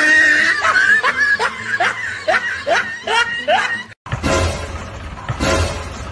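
Repeated snickering laughter, a comic laugh sound over music, that stops abruptly about four seconds in. Then a motorcycle engine runs as the bike rides along the street.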